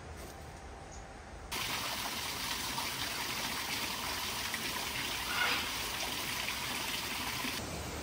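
Water trickling and splashing steadily as thin streams fall from a rock ledge into a garden pond. It starts abruptly about a second and a half in and cuts off just before the end.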